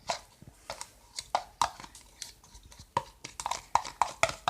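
Spoon stirring a glue and shaving-cream slime mixture in a bowl: irregular, rapid wet clicks and taps.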